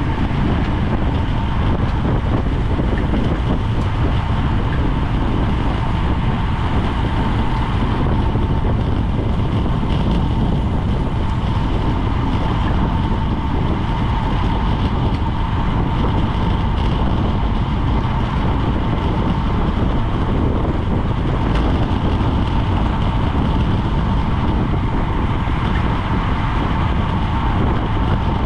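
Steady wind rush and low buffeting on a GoPro microphone riding on a racing bicycle at speed, mixed with tyre and road noise, with a thin steady whine underneath.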